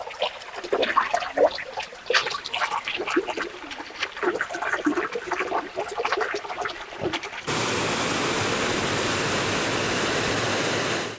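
Water splashing and bubbling irregularly as a plastic bottle is dipped and filled in a shallow stream and water is splashed over skin. About seven and a half seconds in this gives way abruptly to the steady rush of water pouring over a weir, which stops just before the end.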